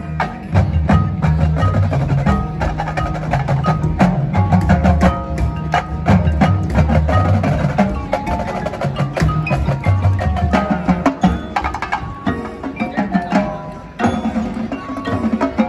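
Marching band playing its field show, with mallet percussion and drums struck in a busy rhythm over sustained low notes. It drops back briefly near the end.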